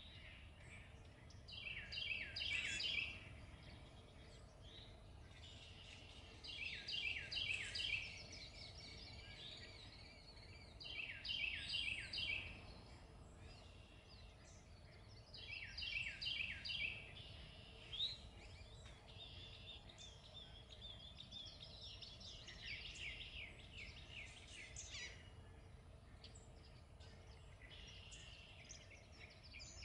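A small songbird singing short phrases of quick, falling high notes, repeated about every four to five seconds, over a low steady rumble.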